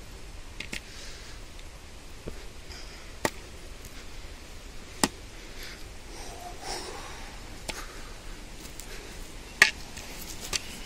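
Footsteps climbing rough stone steps, with a few irregular sharp clicks of shoes striking stone and soft breathing between them.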